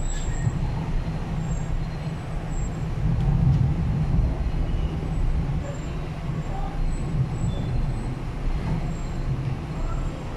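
MTR East Rail Line R-Train, a Hyundai Rotem electric multiple unit, running along the track, heard inside the passenger car as a steady low rumble of wheels and running gear.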